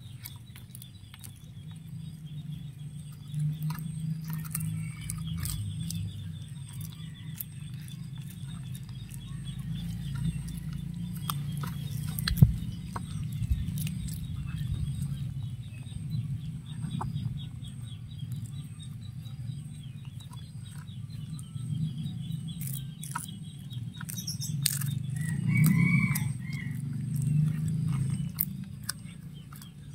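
A cat chewing and crunching a small whole fish, with frequent sharp clicks of teeth on bone against a steady low chewing rumble. A short bird call comes near the end, and a faint, even high insect pulsing runs underneath.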